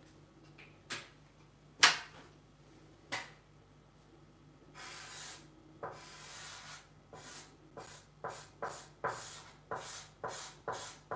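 Felt-tip marker scratching on paper in quick repeated strokes, about two a second in the second half, as black areas of an ink drawing are filled in. Earlier there are a few sharp taps, the loudest about two seconds in, and a longer stretch of rubbing.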